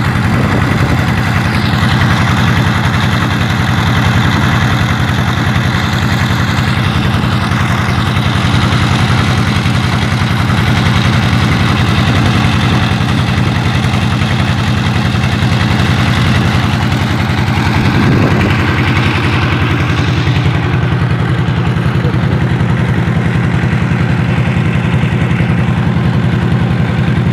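Vehicle engine running steadily with a fast, even throb that holds the same pitch and loudness throughout.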